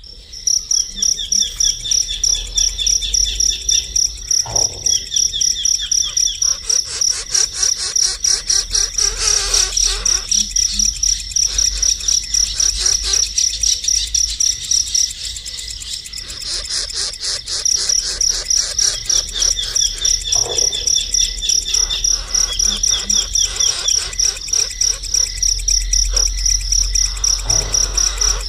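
Rapid, steady, high-pitched insect-like chirping, with short runs of quick falling bird notes repeating every few seconds.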